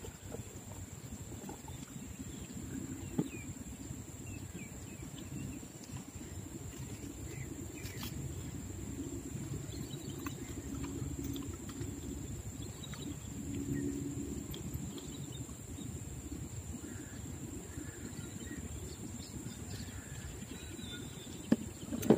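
Steady low rumbling background noise with a few faint short chirps over it; a few sharp knocks near the end.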